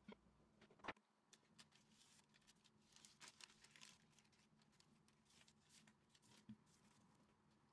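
Faint rustling of baking paper being lifted and straightened under a sheet of rolled-out dough, with light clicks and taps of hands on the countertop. There is a sharper tap about a second in, and the rustle is strongest in the middle.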